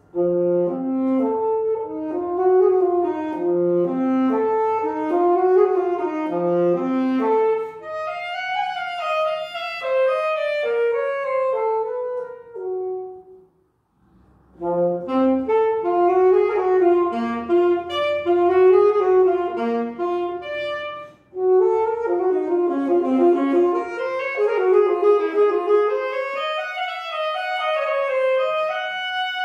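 Saxophone playing a flowing melody of many short notes, stopping for about a second partway through and pausing briefly again later.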